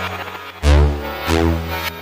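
Electronic background music with deep bass notes and synth chords changing about every two-thirds of a second.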